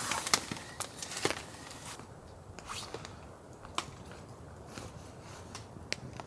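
Wood campfire crackling, with sharp pops and snaps scattered irregularly through, loudest and most frequent in the first second.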